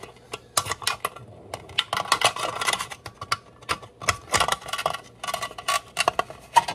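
Steel wire lamp guard clicking and scraping against a thin aluminium reflector bowl as its bent ends are worked into holes in the rim: a run of quick light clicks and rattles.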